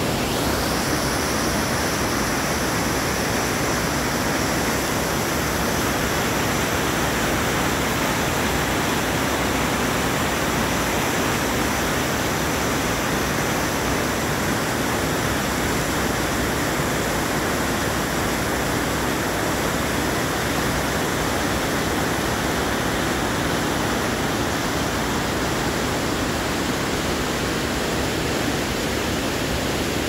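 A waterfall's falling water rushing steadily, an even, unbroken noise.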